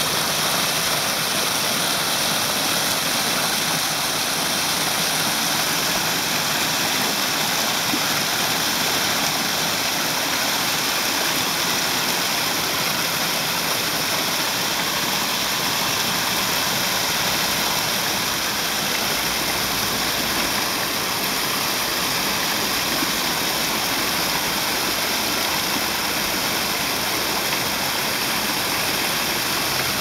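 Steady rush of flowing water from a stream, an even hiss that does not change.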